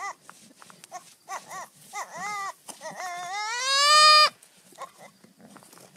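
Young goat bleating: a few short bleats, then one long bleat about three seconds in that climbs in pitch, the loudest call, and cuts off suddenly.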